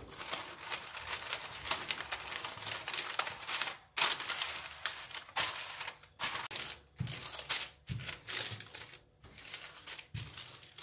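Baking paper crinkling and rustling under a wooden rolling pin as pastry dough is rolled out between two sheets, in repeated back-and-forth strokes with brief pauses between them.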